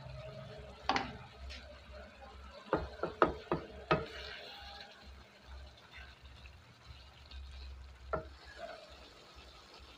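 Metal tongs and a wooden spatula knocking and scraping against a metal wok while the okra and eggplant are moved around in the coconut-milk sauce. There is a single click about a second in, a quick run of five sharp knocks around three to four seconds in, and one more knock near the end, over a faint low simmer.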